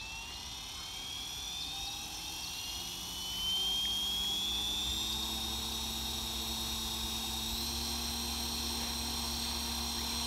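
Goblin radio-controlled helicopter's motor and rotor spooling up: a whine rising in pitch and growing louder for about three seconds, then holding steady, with a small step up in pitch about two thirds of the way through.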